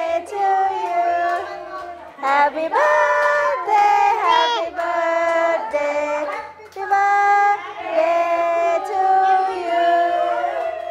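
A small group of women and a young child singing a birthday song together, in held sung phrases, the last note fading near the end.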